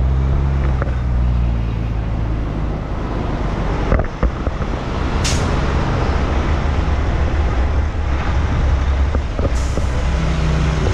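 A semi-truck's diesel engine runs steadily as the tanker rig moves off, with a knock about four seconds in and two short hisses of released air, typical of the truck's air brakes.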